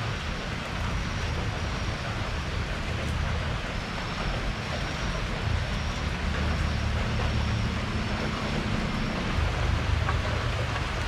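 Steady rain falling on a porch, with a low rumble underneath that swells and eases.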